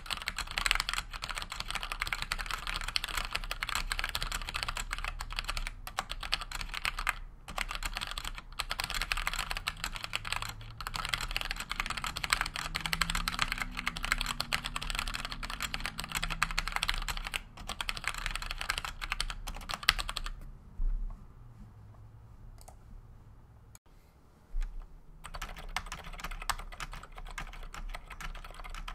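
Typing on a Cherry G80-1800 mechanical keyboard with 55g Gateron Black linear switches and GMK keycaps. The keystrokes come fast and continuous, then stop for a few seconds about two-thirds of the way through, with a couple of single clicks in the pause, then start again.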